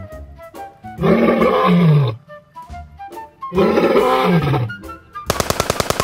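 A lion-roar sound effect dubbed over a kitten's meow, heard twice, each roar about a second long with its pitch rising and then falling. Near the end comes a short burst of rapid machine-gun fire, about twelve shots a second, all over light background music.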